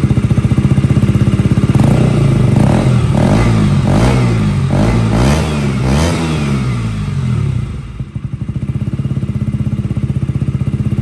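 KTM Duke 125's single-cylinder four-stroke engine at idle through its exhaust, blipped several times in quick succession in the middle so the pitch rises and falls repeatedly, then settling back to a steady idle.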